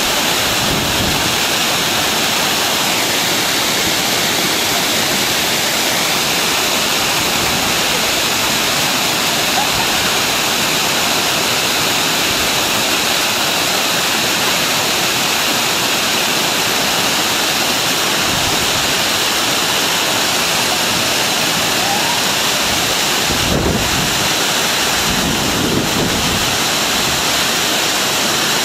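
Sanje Falls waterfall, a loud, steady rush of falling water heard close up, with a few low rumbles near the end.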